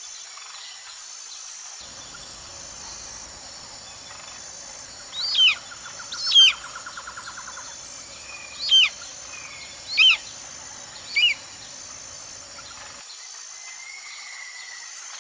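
Bird calls: five loud, short whistled notes, each sliding sharply downward, about a second apart from a third of the way in, with a fast trill under the first two. A steady high insect buzz runs underneath.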